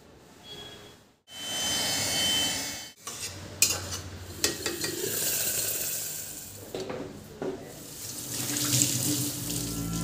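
Running water, with metal pots and utensils clinking and knocking.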